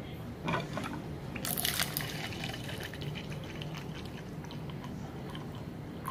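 Hot water pouring in a thin stream from a water dispenser's hot tap into a plastic mug, filling it.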